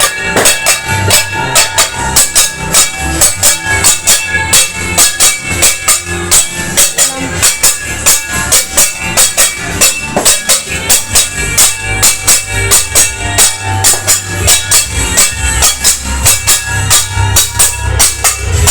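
Loud, rapid banging, about four strikes a second and not quite even, with music playing underneath.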